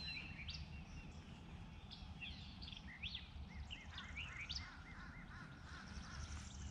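Several small birds calling and singing, with short chirps, a run of repeated notes, and quick rising whistles, over a faint low rumble.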